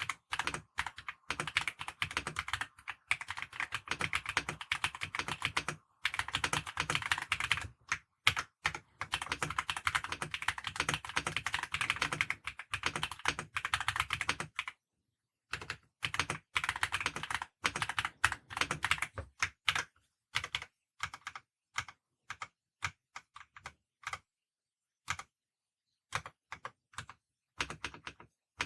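Typing test on a plastic-cased mechanical keyboard with pre-lubed linear switches and sound-dampening material inside: fast, continuous keystrokes for about half the time, a brief pause, then slower, scattered keypresses with gaps between them.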